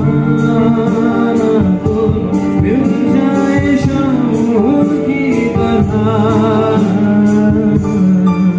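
A live band playing through a PA sound system: a male vocalist singing over guitar and keyboard with a steady drum beat.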